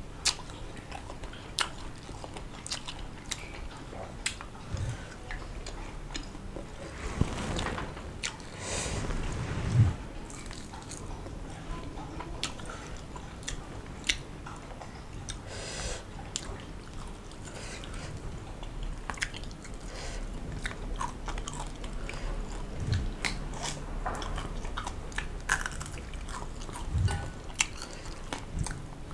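A person chewing a mouthful of rice, spinach and small salir fish close to the microphone, with crunches and sharp mouth clicks scattered throughout.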